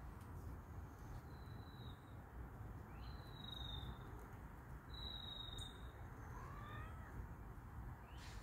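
Adult cat growling in warning at kittens, guarding its food, with a short rising yowl about two-thirds of the way through. Three thin, high, steady whistles, each under a second, sound over it earlier on.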